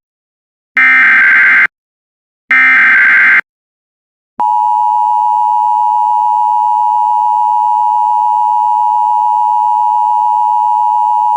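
Emergency Alert System SAME header: two harsh data bursts about a second long, a short gap, then the EAS attention signal, a loud steady tone that begins about four seconds in and holds.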